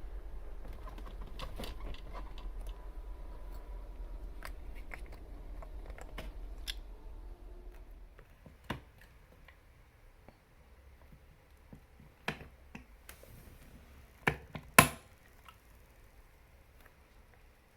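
Scattered small clicks and taps of hard objects being handled, with a few sharper knocks in the second half, the loudest pair near the end. A low hum underneath fades out about halfway through.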